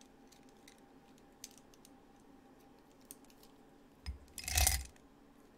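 Faint clicks and light clinks of makeup pencils being sorted through by hand, with a louder bump about four and a half seconds in.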